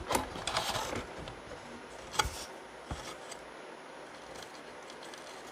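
A wire being worked into a crimp butt connector by hand and with a small tool. Light clicking and scraping fill the first second, then there is one sharp click about two seconds in and a few faint ticks.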